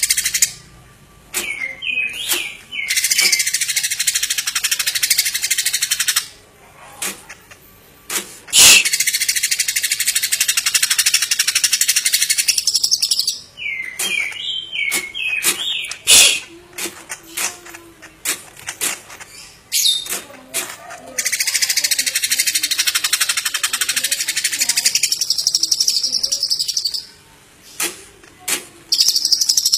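A songbird singing in long runs of rapid, high-pitched twittering chatter, each lasting several seconds, broken by short pauses and a few quick slurred whistled notes.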